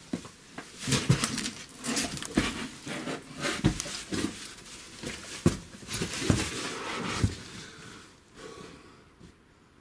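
Sounds of a person scrambling over rock: irregular scuffs and scrapes with a few sharp knocks, mixed with hard breathing. It dies down over the last two seconds.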